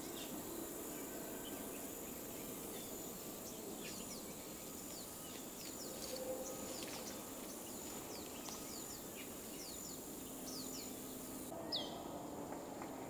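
Tropical forest ambience: a steady high insect drone with many quick falling bird chirps. Near the end there is one louder falling whistle.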